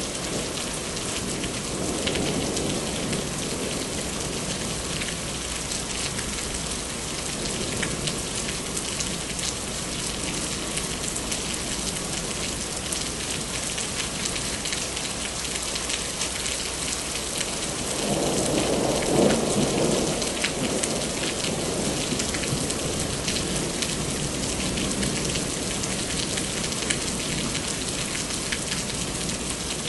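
Steady heavy rain, with thunder rolling low near the start and a louder rumble about two-thirds of the way through.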